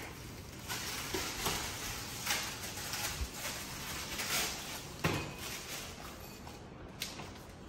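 Rustling and crinkling of an instant-noodle packet being handled and torn open over a bowl, with a sharp knock about five seconds in and a lighter click near the end.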